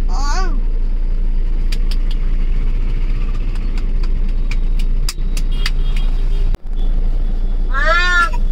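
Steady low rumble of a car heard from inside the cabin, with scattered light clicks and taps. High, sliding voice sounds come briefly at the start and again near the end.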